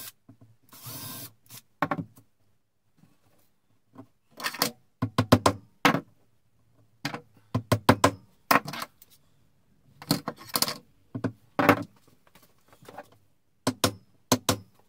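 Hammer driving nails into painted wooden beading: clusters of sharp taps in quick runs, with pauses between. About a second in, a short burst from a cordless drill finishing a pilot hole for the nail.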